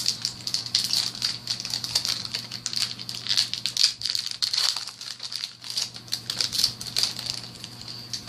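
Foil wrapper of a Kaijudo booster pack crinkling irregularly as it is handled and opened. The crinkling dies away just before the end.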